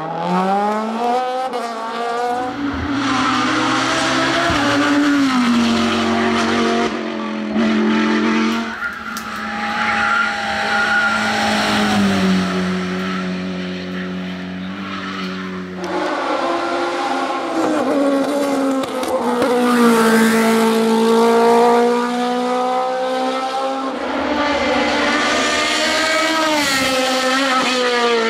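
Race car engines at full throttle, one car after another, the engine note climbing hard and then dropping at each gear change.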